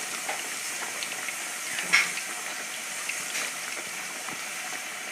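Potato pieces deep-frying in hot oil: a steady sizzling hiss with small crackles, and one sharper pop about two seconds in.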